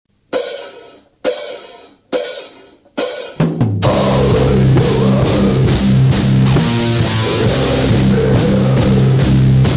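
Opening of a heavy metal track: four ringing drum-and-cymbal hits a little under a second apart, then about three and a half seconds in the full band comes in, with low held guitar and bass notes over drums.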